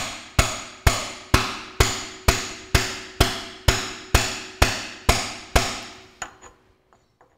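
Hammer blows at an even pace, about two a second, on a tubular driver, tapping the Ferguson TEA20's crankshaft timing sprocket onto its Woodruff-keyed crankshaft, with each blow ringing. The blows stop about five and a half seconds in, followed by a few light taps.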